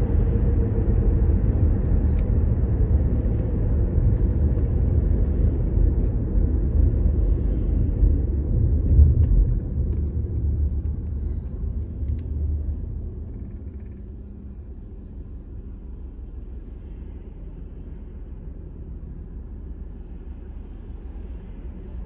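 Road and engine noise heard from inside a moving car: a steady low rumble that falls away about twelve seconds in as the car slows to a stop in traffic, leaving a quieter, even hum.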